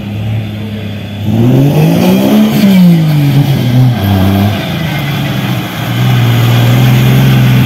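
Off-road buggy's engine revving through mud: the revs climb about a second in, peak, fall back, then hold steady and loud near the end.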